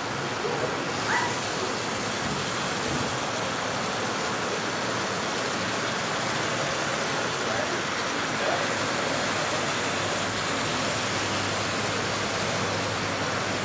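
Steady running noise of a 7.5 mm scale metre-gauge model electric train travelling along its track, heard as an even rushing hiss.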